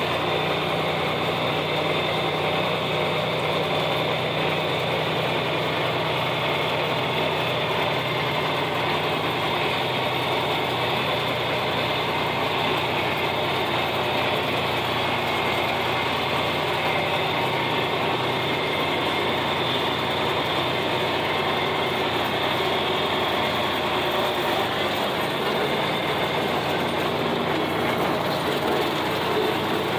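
John Deere 4020 tractor engine running steadily under load while pulling a 1408 rotary cutter (brush hog) through grass, with the cutter's drive running behind it, heard from the operator's seat. The sound stays even, with no change in pitch or level.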